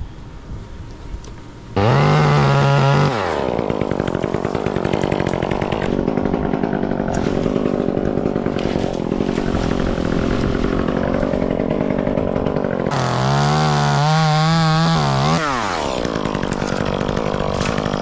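Chainsaw starting up about two seconds in, then running under load through a long cut in locust wood for about ten seconds; near the end it revs freely with a wavering pitch, then falls back.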